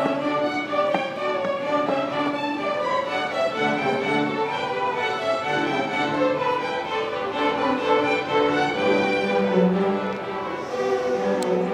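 String orchestra of violins and cellos playing, bowing sustained notes together in a classical piece.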